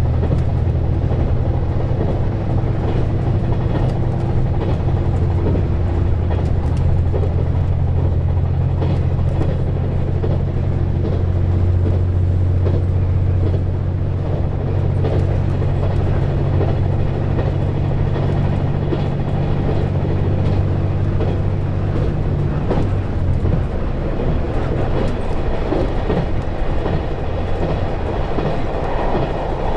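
KiHa 187 series diesel railcar running at speed: the diesel engine drones steadily over the rumble and clack of the wheels on the track. About 23 seconds in the engine note falls away, leaving the wheel and rail noise.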